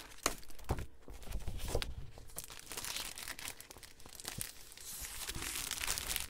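Clear cellophane wrapping around a pack of patterned craft paper crinkling as it is handled, with paper sheets rustling and brushing against it. Irregular crackles, busiest in the middle.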